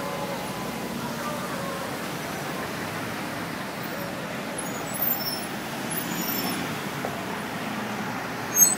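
Steady city street traffic noise, with cars and taxis running past at a busy intersection. Two short loud bursts come near the end.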